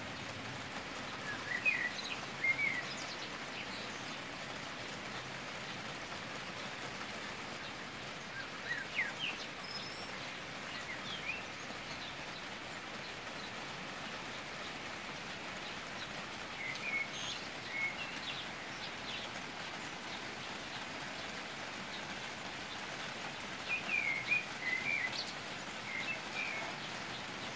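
Steady hiss of a rain shower falling, with a bird giving short high calls in four brief bouts.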